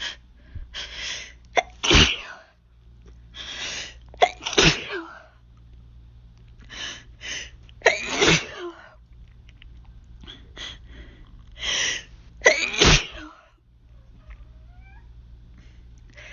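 A person sneezing in a hay fever fit: four loud sneezes a few seconds apart, each after gasping, catching in-breaths.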